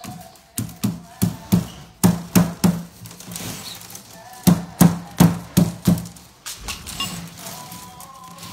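A metal tool striking the willow stakes and rope of a wicker hamper: sharp knocks in three quick runs of a few blows each, about three a second, with a short pause between runs.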